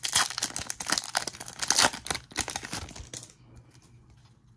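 Plastic wrapper of a baseball card pack crinkling and tearing in a rapid run of crackles, stopping about three seconds in, leaving only a few faint ticks.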